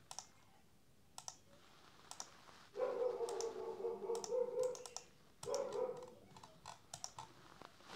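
Computer mouse clicks and keyboard key presses, scattered and irregular. A steady high tone of unknown source sounds for about two seconds from about three seconds in, and again briefly after five and a half seconds.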